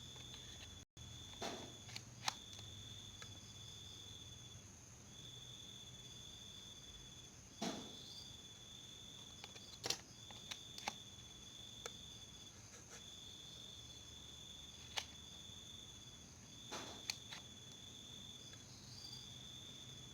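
Faint high-pitched insect trill repeating in bursts of about a second or two with short gaps, with a few soft knocks and clicks scattered through.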